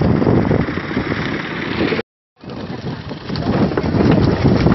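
Loud splashing and churning water where a net full of thrashing skipjack tuna is being hauled in against a boat's side. It cuts out completely for a moment about two seconds in, then comes back with sharper splashes.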